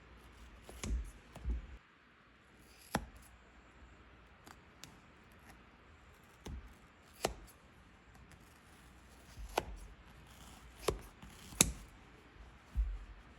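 Scissors snipping: a series of irregular, sharp snips several seconds apart, with quiet handling noise between them.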